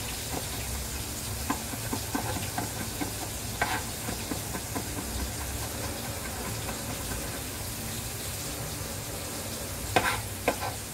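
Fish frying in hot oil with a steady sizzle, while a cleaver taps lightly on a wooden cutting board mincing garlic, with a few sharper knocks near the end.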